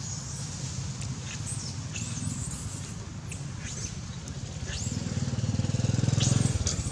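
A small engine running with a steady low hum. It grows louder about five seconds in, then drops away suddenly near the end. Short high chirps sound over it now and then.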